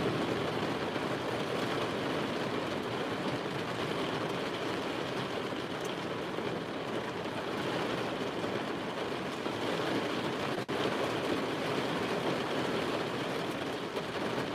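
Heavy rain drumming steadily on the roof and windows of a vehicle, heard from inside the cabin.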